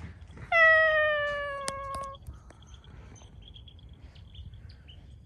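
A cat meowing: one long meow that falls slightly in pitch, starting about half a second in and lasting about a second and a half.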